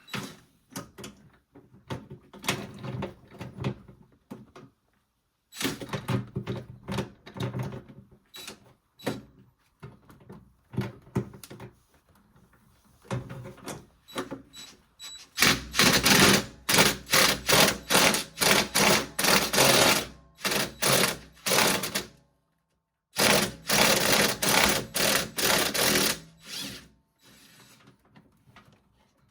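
Rapid clicking and knocking of hand tools on the washing machine's motor as it is being worked loose, coming in irregular runs, with two long dense stretches in the second half.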